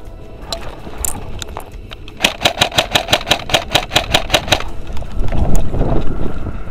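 Airsoft gun, a Tokyo Marui P90, firing a rapid burst of about fifteen shots lasting a little over two seconds, each shot a sharp clack. A louder rough scuffing and rustling of the player moving over dirt follows near the end.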